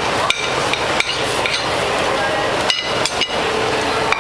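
Metal spatula clanking and scraping against a wok on a teppanyaki griddle as fried rice is tossed, with sharp metal knocks every second or so over a steady frying sizzle.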